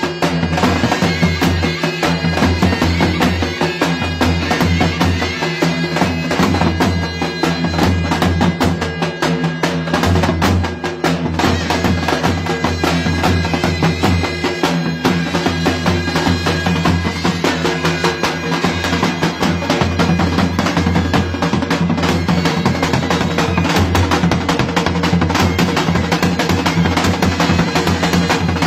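Loud folk dance music: a reedy wind-instrument melody of long held notes over a driving drum beat.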